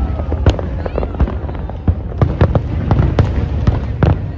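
Aerial fireworks bursting: a rapid series of sharp bangs and cracks over a continuous low rumble of overlapping explosions.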